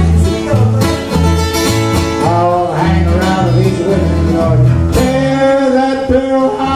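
Solo steel-string acoustic guitar playing a country/rockabilly boom-chick rhythm, with alternating bass notes about twice a second under strummed chords. There are bent lead notes about halfway through, and a hard strum about five seconds in is left to ring.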